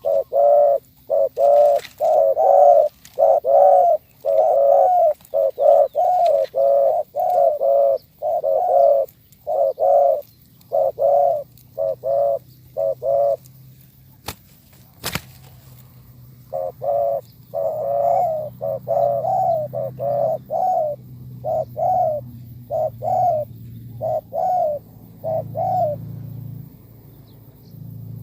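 Spotted doves cooing in quick repeated series of short, hollow coos, with a pause about halfway through. A single sharp click sounds in the pause, and a faint low hum runs under the later calls.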